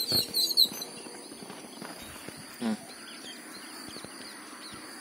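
Quiet outdoor background with a few short knocks in the first second and a brief voice sound about two and a half seconds in.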